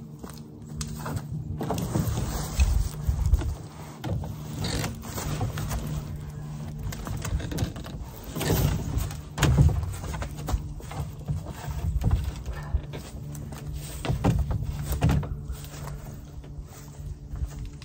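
Handling noises of rigging a canoe shelter: paddles and rope being worked against the canoe, irregular knocks and rustling with a few louder knocks, over a steady low hum.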